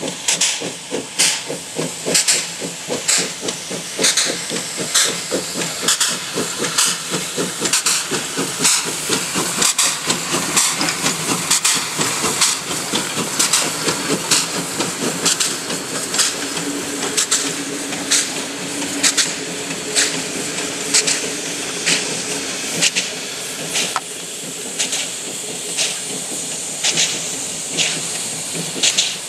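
PKP class Pt47 2-8-2 steam locomotive working a passenger train past at speed, with a steady rhythm of exhaust chuffs over constant steam hiss.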